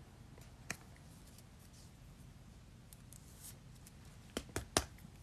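Quiet room with a few light clicks and taps of small things being handled, one about a second in and three close together near the end.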